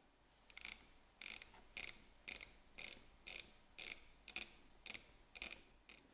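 Citizen diver's watch bezel being turned click by click, about two crisp ratchet clicks a second, eleven in all, as the refitted bezel is checked.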